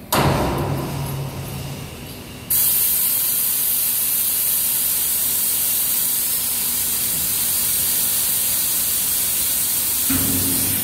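Compressed air hissing from the pneumatic valves and cylinders of a stainless steel slaughter restraint box as it is worked. A burst of air at the start fades over about two seconds, then a loud, steady hiss comes in suddenly about two and a half seconds in and holds. A low hum joins near the end.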